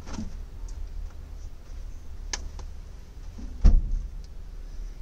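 Wet clothes being handled and hung on a rod to dry in a truck cab: a few sharp clicks, and a louder knock with a thud about three and a half seconds in, over a low steady rumble.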